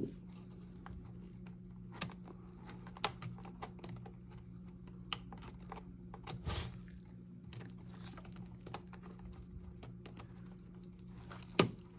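Scattered small plastic clicks and taps as an instrument cluster's mechanical odometer drum is handled and pressed into its groove, its gear being lined up with the gear below. A steady low hum runs underneath.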